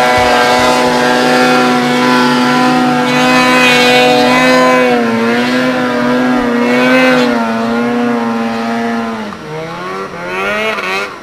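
Snowmobile engine held at high, steady revs under load as the sled climbs a slope, its pitch wavering slightly. About nine seconds in the revs drop off, then climb again near the end.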